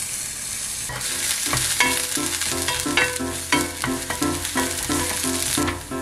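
Sliced green onions sizzling and frying in hot oil in an enamelled cast-iron pan, stirred with a wooden spatula.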